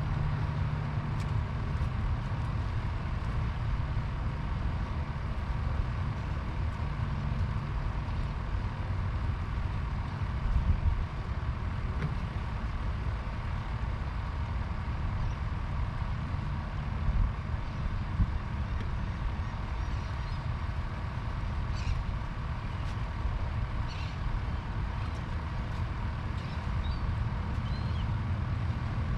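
Steady low rumble of distant road traffic with a faint steady hum. A few faint short high chirps come in the last third.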